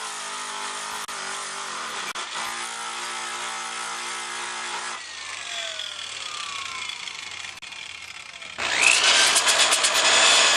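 Power grinder smoothing the bike's steel frame where the pump brackets were cut off, running with a steady whine. About five seconds in it is switched off and winds down with a falling whine. Near the end a louder, harsher grinding on the metal starts.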